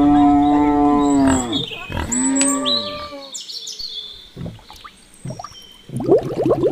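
A cow mooing twice: one long moo ending about a second and a half in, then a shorter one. High bird chirps follow, and near the end a rapid pulsing animal call.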